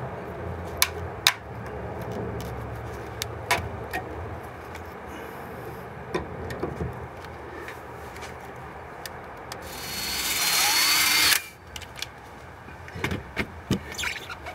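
Power drill boring the last bolt hole through the Jeep JK tailgate's sheet metal. It runs hard for about a second and a half, two-thirds of the way in, and stops suddenly. Scattered clicks and taps come before and after it.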